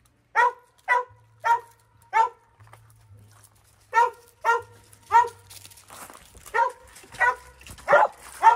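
A dog barking repeatedly: four barks about half a second apart, a pause of about a second and a half, then a run of seven more barks at a similar pace.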